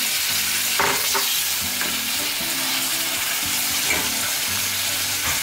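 Chicken giblets sizzling as they are stir-fried in hot oil in a stainless steel pan, with a few sharp taps of chopsticks against the pan, about a second in and again near four seconds.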